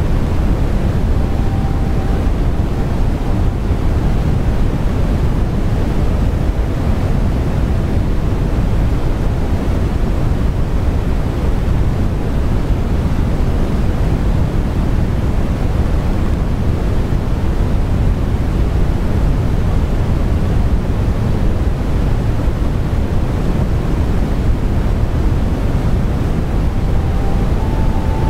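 Steady rushing background noise, heaviest in the low end, with no distinct sounds standing out. A faint thin tone comes in briefly near the start and again near the end.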